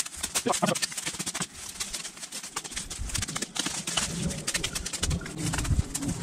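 Victorinox Venture fixed-blade knife chopping into a small live tree: many quick, irregular strikes of the blade into the wood. A dove coos in the background.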